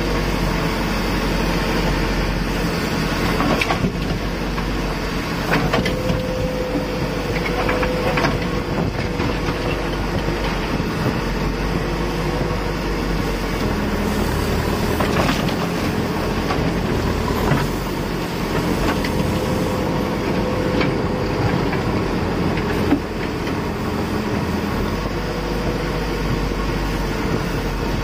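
Backhoe loader's diesel engine running steadily under load, heard from inside the operator's cab, with a tone that rises a little twice as the boom is worked. Occasional knocks come as the bucket digs and dumps soil.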